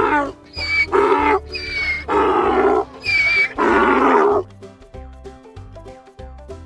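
A farm animal giving a run of about six loud calls, over background music with a steady beat; the calls stop about four and a half seconds in and the music carries on alone.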